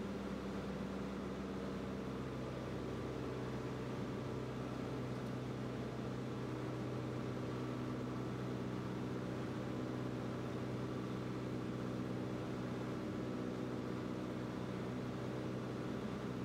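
Piston engine and propeller of a single-engine light aircraft heard inside the cockpit: a steady, even drone with a low hum in it. The pitch shifts slightly about two seconds in.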